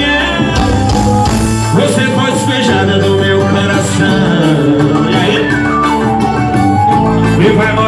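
Band music with a melodic line over a steady bass, playing continuously.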